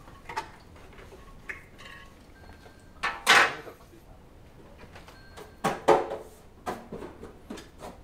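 A few scattered knocks and clunks from a microwave oven being handled and its door worked, the loudest about three seconds in and another pair near six seconds.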